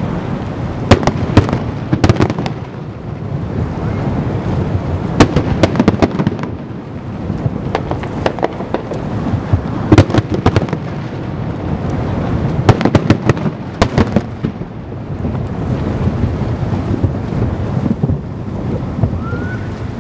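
Fireworks display: aerial shells bursting in clusters of sharp bangs and crackle over a continuous low rumble of further explosions.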